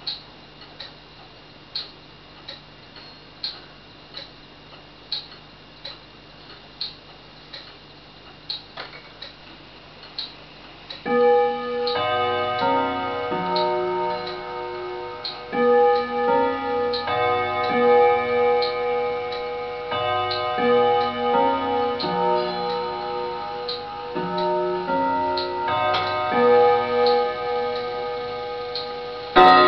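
Pendulum wall clock ticking slowly, a little faster than once a second, then about eleven seconds in its chime starts playing a melody of ringing notes in phrases to mark the hour. Near the end a louder single strike rings out, the start of the hour count.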